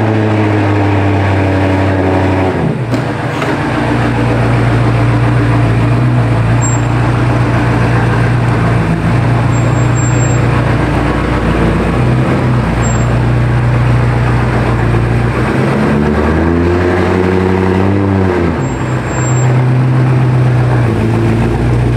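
BMW M5 Competition's twin-turbo V8 running as the car drives, a steady loud drone that dips briefly a few times and rises and falls once about two-thirds of the way through.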